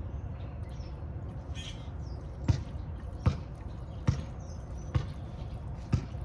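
Gasoline pouring from a red plastic gas can into the fuel tank of an Echo PB-580T backpack blower: a steady trickle, joined from about two and a half seconds in by a low glug roughly every second.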